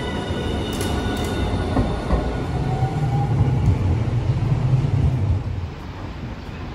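Hiroden 1000-series Green Mover LEX low-floor tram moving along the rails. Its electric motor whine fades in the first second or two, and a low rumble of wheels on track swells mid-way, then dies down near the end.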